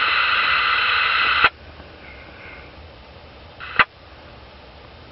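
CB radio speaker hissing loudly with steady whining tones from an incoming carrier, cut off sharply with a squelch click about a second and a half in. Low hiss follows, with one more brief click later.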